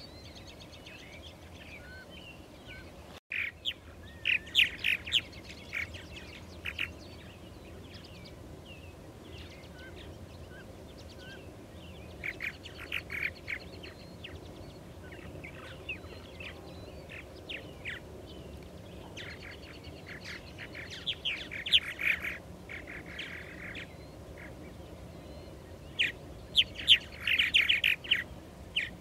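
Purple martins calling at their nesting colony: bursts of rapid chirps and chatter coming in several clusters a few seconds apart, with quieter gaps between.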